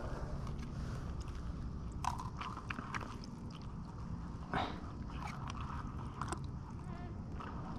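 Small gritty crunches and scrapes as a rubber sluice riffle mat and a flexible sluice mat are handled and bent over a plastic gold pan, grains of sand and gravel shifting on them, with a couple of sharper clacks about two and four and a half seconds in.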